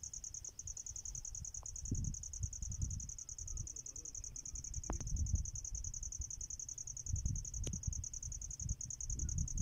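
An insect trilling: a continuous high, rapidly pulsing chirr, over a low irregular rumble, with a couple of sharp clicks.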